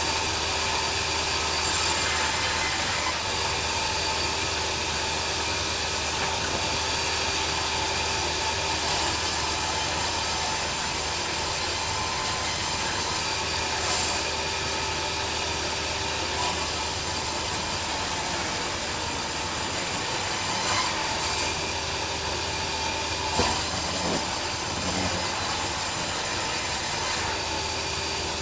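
Band saw mill running steadily as its blade saws through a log lengthwise, with a constant pitched whine under the cutting noise and a few small knocks.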